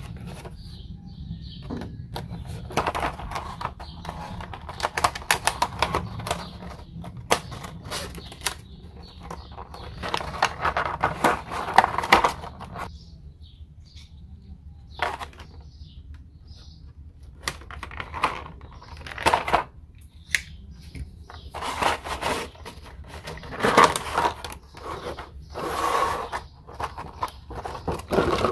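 Clear plastic blister packaging crinkling and clicking as it is handled, in several bursts of crackling rustle with short pauses between them, over a steady low hum.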